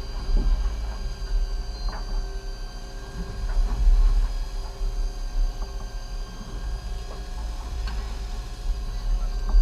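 Fishing boat's engine running: a steady hum over a low rumble, with a few faint clicks and knocks.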